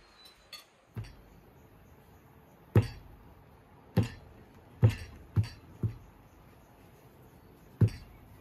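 Six sharp knocks at uneven spacing, the first about three seconds in, each a short hit with a dull low thud.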